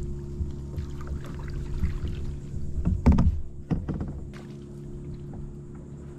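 Knocks and thumps on a Kaku Voodoo fishing kayak as the paddler shifts her weight and handles her gear, loudest about three seconds in, with smaller knocks just after. A steady low hum runs underneath.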